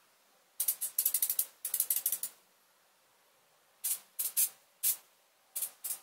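A ratchet mechanism clicking in short, rapid bursts while a mountain bike is being worked on, with a pause of about a second and a half in the middle.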